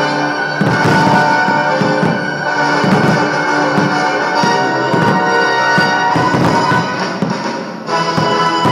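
Orchestral music with brass, loud and continuous, with short sharp hits cutting through it about once a second.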